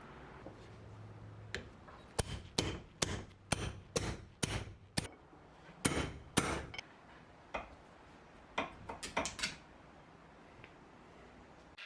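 A series of sharp knocks from hand tool work on an old axe. They start about two seconds in as a run of two or three blows a second, then come singly, with a quick cluster of lighter knocks later on.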